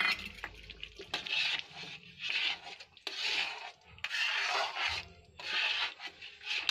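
A metal spatula stirs and scrapes thick curry gravy around a metal kadhai, in rough strokes about once a second. There is a sharp knock of spatula on pan at the start.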